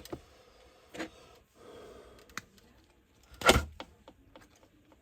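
Light clicks and taps of small tools and parts being handled on a work surface, with one sharp knock about three and a half seconds in.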